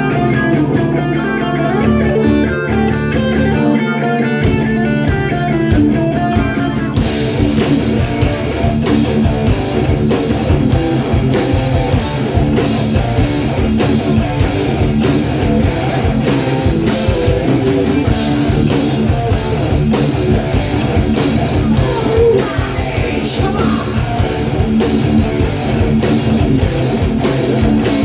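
Heavy metal band playing live: a picked electric guitar intro, then about seven seconds in the drums and the rest of the band come in with distorted guitars and a steady driving beat.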